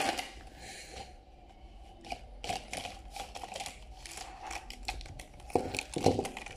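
YueCai plastic-barrelled permanent markers clicking and knocking against one another as they are pulled from their plastic blister tray and bunched in the hand. A brief rustle of the tray comes near the start, then a quick run of light clicks.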